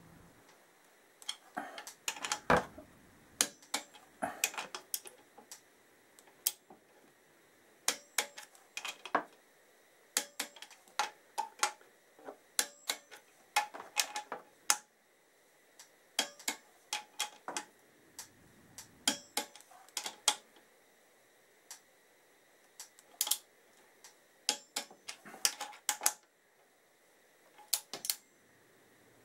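Torque wrench clicking in short runs, many times over, as bolts on a motorcycle engine's cylinder head are tightened to 21 Nm.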